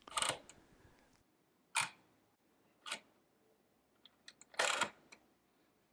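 The plastic dial wheels of a Chadwick pocket adding machine being pushed up one at a time with a finger to subtract, each push a short run of spring-loaded clicks as the wheel steps from one position to the next. Four separate pushes about a second apart, the longest about three-quarters of the way through.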